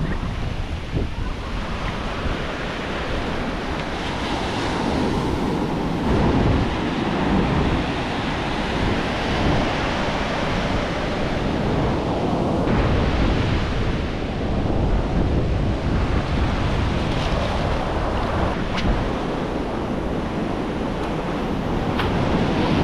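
Ocean surf breaking and washing up the sand around the feet, the wash swelling and easing, with wind buffeting the microphone.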